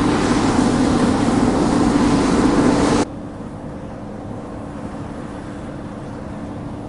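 Combine harvester running steadily with a constant low hum. About three seconds in the sound cuts abruptly to a quieter, steadier machine hum.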